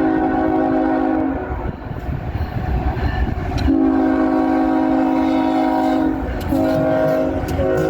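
Locomotive multi-chime air horn sounding a chord of several notes at once in blasts: one ending about a second in, a long blast, a short one, and another long one starting at the end, the long-long-short-long grade-crossing pattern. Under it the train's wheels rumble and clack on the rails.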